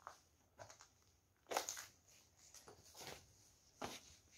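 A few faint crunching footsteps on debris, three short scuffs spread over a near-silent stretch.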